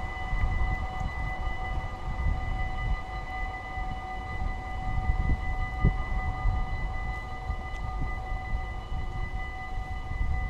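Level-crossing warning bells of a Dutch automatic half-barrier crossing ringing steadily while the barrier arms lower, a sign that a train is approaching. Under the bells there is a low, uneven rumble.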